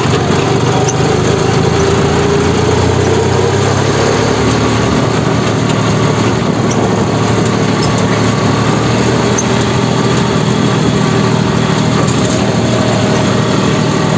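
Engine of a moving vehicle running steadily, with a small shift in its pitch a few seconds in.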